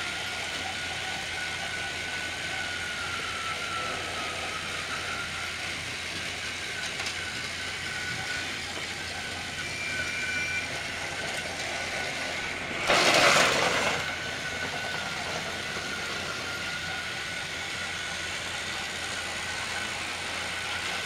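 Battery-powered Trackmaster toy train motors whining steadily, the pitch wavering slightly as the engines run around plastic track. A little past halfway, a loud rough rushing noise lasts about a second.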